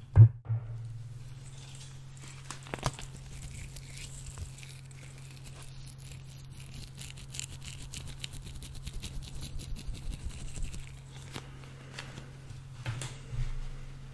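Clear plastic packaging and a small tag handled and torn off right at the microphone, in many fine crinkles and crackles, over a steady low electrical hum. A sharp knock against the microphone just after the start is the loudest sound.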